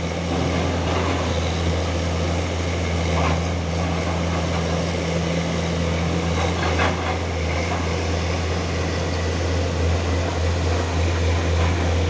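Excavator's diesel engine running at a steady low drone, with a couple of faint knocks about three and seven seconds in.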